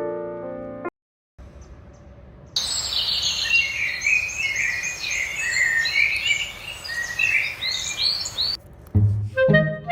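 Many small birds chirping and trilling at once over a light background hiss. Piano music ends about a second in, and music starts again near the end.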